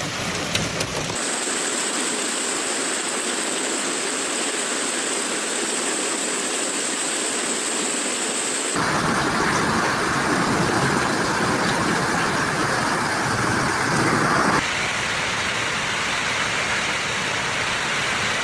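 Steady hiss of heavy storm precipitation pelting down, in several clips cut together, the sound changing abruptly about a second in, again about nine seconds in, and again about fifteen seconds in.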